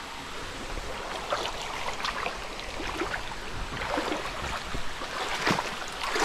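Shallow stream running over rocks, with irregular splashes of feet wading through the water several times.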